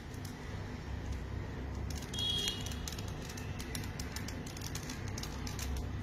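Plastic axis cube being twisted and scrambled by hand: a run of small, irregular clicks as its layers turn. A short high chirp, like a bird, about two seconds in.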